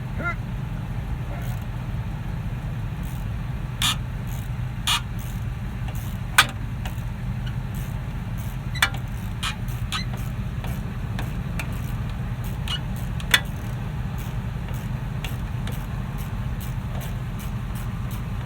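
Hand tools clicking and knocking on the front suspension linkage as it is worked loose, about half a dozen sharp metallic clicks scattered over a steady low mechanical hum.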